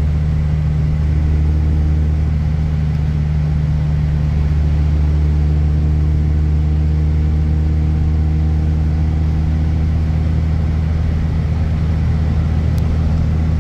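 Honda Accord with a freshly welded custom exhaust, heard from inside the cabin while cruising at a steady speed: a steady low engine drone with no revving or gear changes. The owner finds the new exhaust not very droney and pretty quiet.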